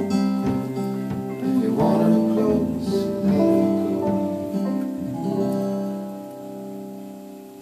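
A band's closing chords: strummed acoustic guitar over sustained notes, then the last chord left to ring and fade away over the final few seconds.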